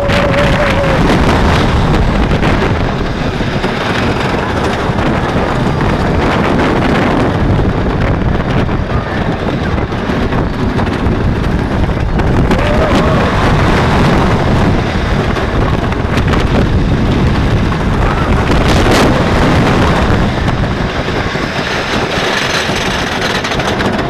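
Wooden roller coaster train running at speed along its wooden track, with heavy wind buffeting the microphone and a few brief screams from riders.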